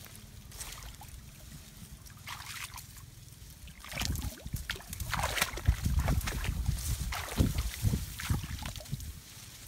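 Dry leaves and twigs rustling and crackling as someone pushes through brush, with wind buffeting the microphone from about four seconds in.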